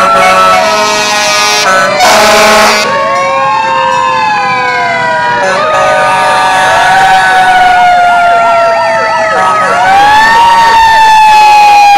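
Several fire truck sirens sounding together: slow wails rising and falling and long tones sliding down in pitch, with a fast up-and-down yelp joining about halfway through. A short, loud blast cuts in about two seconds in.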